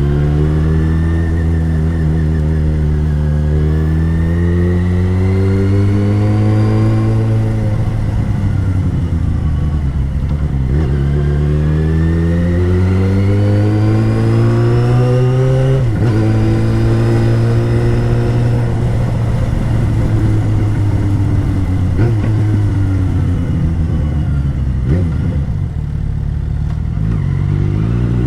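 Yamaha XJ6's 600cc inline-four engine running under way, its revs rising and falling as the bike is ridden through the gears, with several quick breaks in the engine note at the gear changes.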